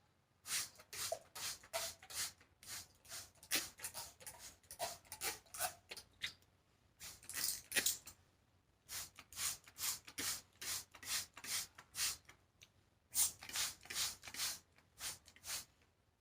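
Curly human-hair wig being worked close to the microphone: a run of short rasping, rustling strokes, a few a second, pausing twice along the way.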